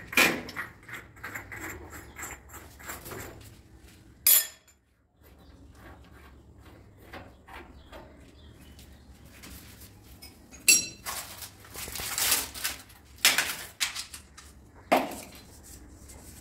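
Metal plumbing fittings (chrome wall flanges and brass threaded connectors) clinking, scraping and knocking as they are handled and unscrewed by hand at a tiled wall, with a few sharper ringing metal clinks, one about four seconds in and several in the last few seconds.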